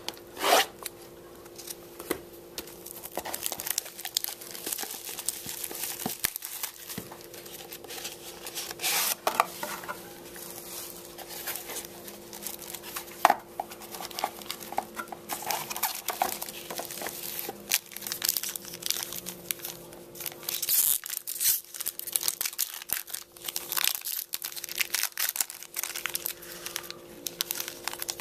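Hands opening a sealed trading-card box, then crinkling and tearing open the foil card pack inside, with irregular rustles and sharp clicks throughout. A steady low hum runs underneath.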